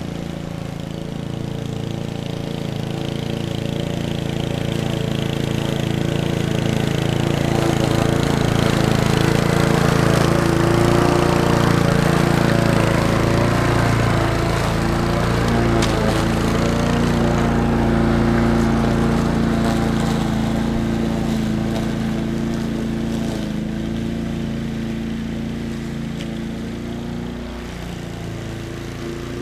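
Petrol walk-behind rotary lawn mower running steadily as it cuts grass. It grows louder as it comes close about a third of the way in, then fades as it moves away.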